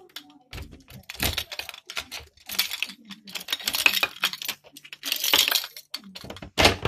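Bursts of clattering, rattling and clicking, a few times in quick succession with the loudest near the end: keys and a door's lever handle being worked as the door is unlocked.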